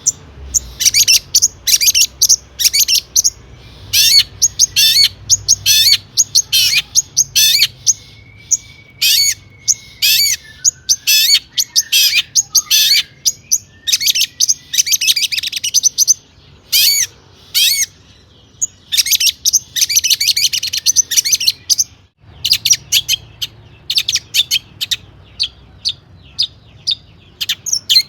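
Long-tailed shrike (cendet) singing a fast, continuous stream of short high chattering notes in quick runs, broken by brief pauses. This is the full song laced with mimicked calls of other birds that keepers play to prompt caged shrikes to sing.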